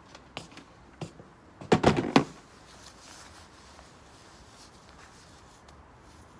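A plastic pet carrier being handled as a racing pigeon is taken out of it: a few light clicks, then a quick run of loud knocks and rattles about two seconds in.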